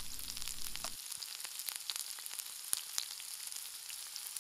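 Sizzling sound effect of food frying in a pan: a steady hiss dotted with small pops and crackles. A low rumble under it drops away about a second in.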